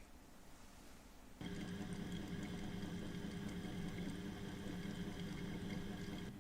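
A small electric machine switches on about a second and a half in and runs with a steady, even hum, then stops shortly before the end.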